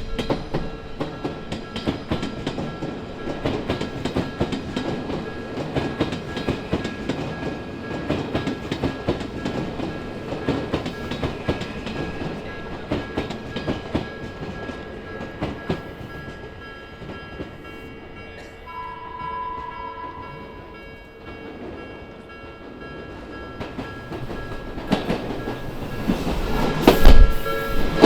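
Odakyu electric commuter train passing over a level crossing, its wheels clattering over the rail joints. The clatter dies away past the middle, a steady tone sounds for about two seconds, and then another train comes on with louder clatter near the end.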